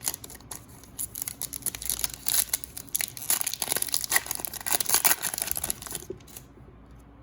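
Wrapper of a trading-card pack being torn open and crinkled in the hands: a dense run of crackles that stops about six seconds in.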